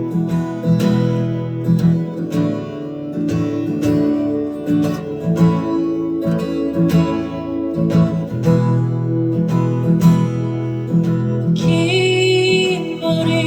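Acoustic guitar strumming chords in a live band performance, with a singing voice coming in near the end.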